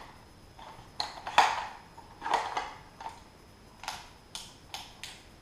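Handling of an unboxed airsoft gun and its accessories: a series of about eight sharp clicks and knocks of hard plastic and metal parts, the loudest about a second and a half in.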